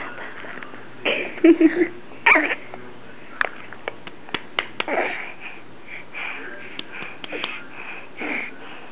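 A baby's short babbles, grunts and breathy sounds close to the microphone, with a few small sharp clicks scattered between them.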